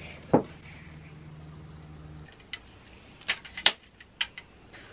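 Sharp plastic-and-metal clicks and knocks of a camera tripod with a ring light being set up and its legs adjusted: one click just after the start, then a cluster of clicks near the end. A low steady hum runs under the first two seconds and stops.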